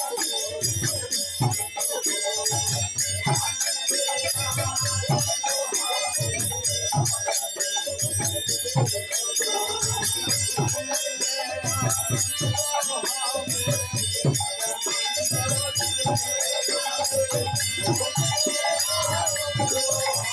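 Live folk music on harmonium, barrel drum and small hand cymbals: the harmonium carries the melody, the drum beats a steady rhythm of about one stroke a second, and the cymbals jingle throughout.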